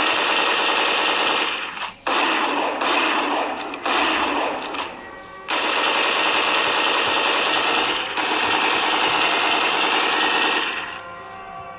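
Emergency Alert System alarm audio: loud, harsh, buzzing data-burst noise in several long bursts with short breaks, giving way near the end to quieter steady tones.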